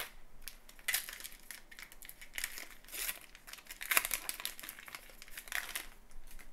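A trading-card pack wrapper being torn open and crinkled by hand: a series of sharp crinkling bursts, the loudest about four seconds in.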